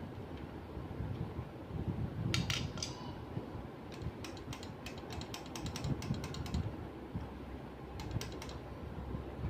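Small sharp clicks and ticks of a screwdriver and screws, in three bunches, as the laser printer's pickup-roller (rotate) motor is screwed back in place, over a steady low hum.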